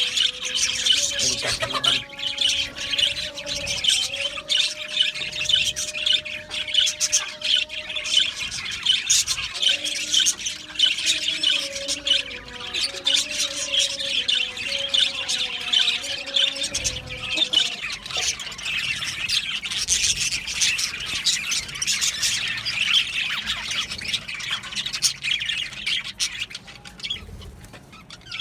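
Flock of budgerigars chattering and squawking continuously in an aviary colony. A fainter low melodic sound runs underneath until about two-thirds of the way through.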